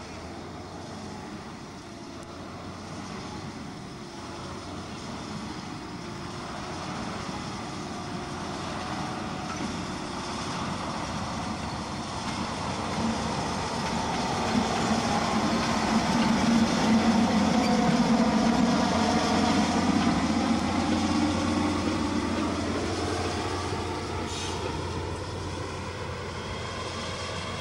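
Diesel shunting locomotive running, growing louder as it approaches, loudest as it passes close by about two-thirds of the way through, then fading as it moves away.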